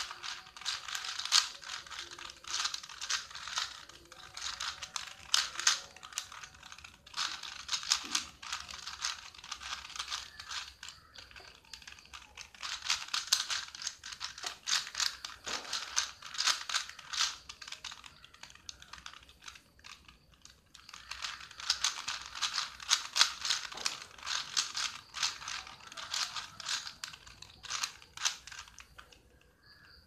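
Plastic 4×4 Rubik's cube being turned by hand: quick runs of clicking and clacking as the layers snap round, in bursts with short pauses between move sequences.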